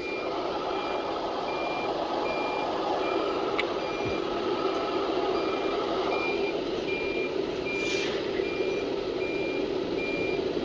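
CNC machine running steadily while its Y axis homes, with a short high electronic beep repeating a bit under twice a second. A higher part of the machine's hum drops out about six seconds in.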